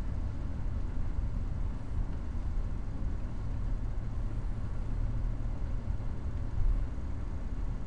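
Steady low rumble of a car's engine and tyres heard from inside the cabin while driving slowly, with one brief louder bump near the end.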